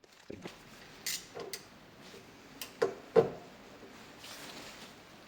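Hand tools clicking and knocking against metal while working a stuck bolt loose on a bicycle: about half a dozen short sharp clicks, the loudest two close together about three seconds in.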